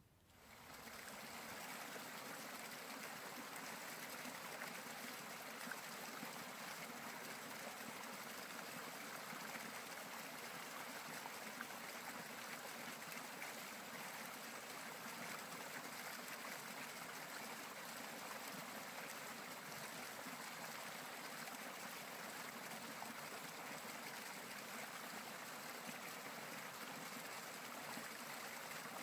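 A small creek running steadily under snow and a fallen log, a faint even trickle that fades in over the first second or two.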